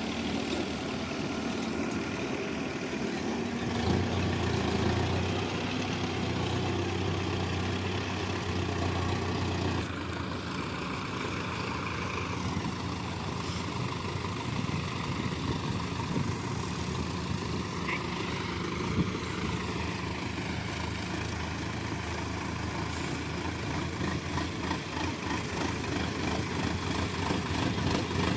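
Heavy-machinery diesel engine running steadily. The engine note deepens about four seconds in and changes again at about ten seconds.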